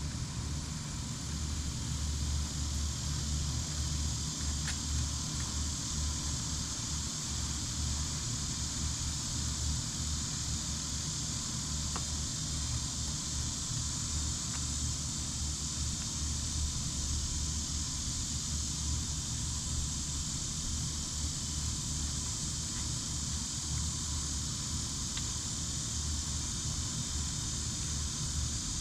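Steady high-pitched insect chorus, with a low fluctuating rumble underneath.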